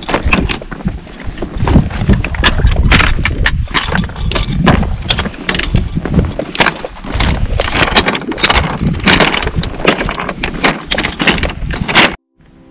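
Hiker's footsteps crunching on a rocky, gravelly trail, irregular steps several a second, with wind rumbling on the microphone. The sound cuts off abruptly about twelve seconds in.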